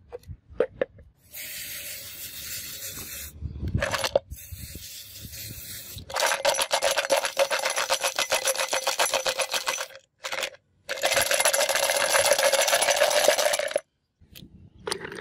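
Aerosol spray can with a straw nozzle hissing in four bursts, the longest and loudest in the middle, onto small steel jack parts in a plastic bucket. A few light clinks of the parts come first.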